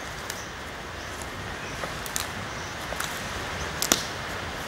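Footsteps on dry leaf litter and twigs: irregular crackles and snaps, the loudest about four seconds in, over a steady outdoor hiss.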